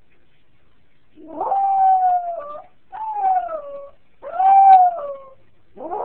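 Jack Russell terrier crying in long howls: three drawn-out cries, each sagging in pitch at its end, and a fourth starting near the end. This is the distress crying of a dog left behind by its person.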